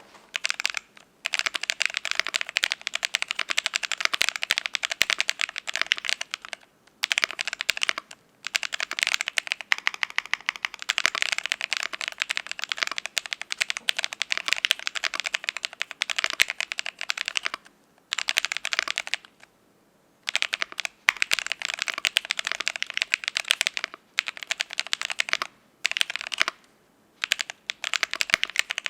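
Fast typing on a Cyberboard R3 mechanical keyboard with lubed ICY Silver switches, an aluminium plate and Kelowna transparent plastic keycaps: rapid runs of keystrokes broken by short pauses, the longest about two seconds, some eighteen seconds in.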